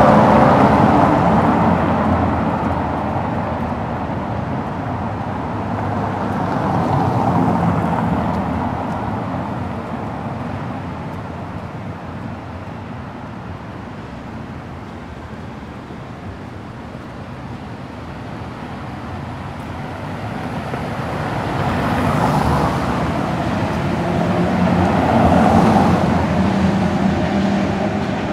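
Road traffic: cars passing one after another, each swelling and fading, with the loudest passes at the start and again near the end.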